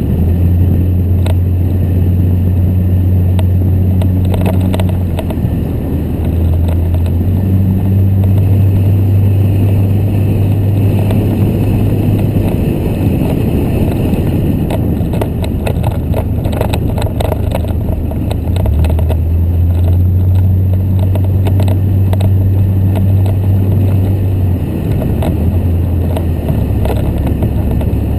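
A vehicle driving along, with a steady low drone that shifts pitch a few times as the speed changes and scattered knocks from bumps.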